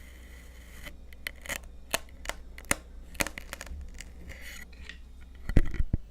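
Crunchy kinetic sand being worked, giving a string of crisp crackles and short scrapes, then a few heavy dull thumps near the end, the loudest sounds.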